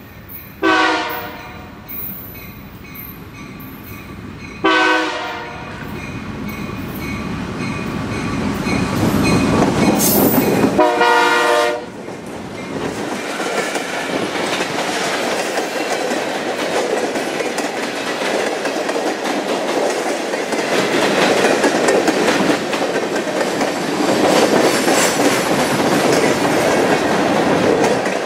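Freight train led by two EMD diesel locomotives approaching and sounding its horn three times, each blast about a second long, while its engine noise grows louder. From about twelve seconds in, hopper cars roll past close by on steel wheels with a steady loud rumble and rapid clicking on the rails.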